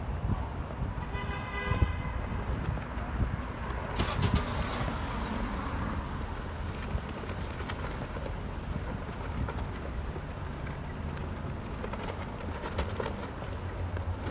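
Street traffic with a steady low rumble of passing vehicles. A brief high-pitched squeal comes about a second in, and a sudden hiss about four seconds in.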